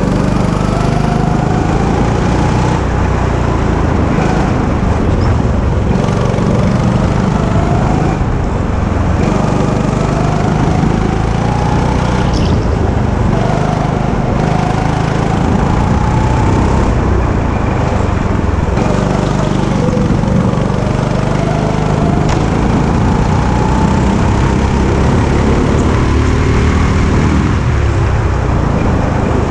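Go-kart's small engine running hard, its pitch climbing again and again as the kart accelerates out of each corner and falling back between.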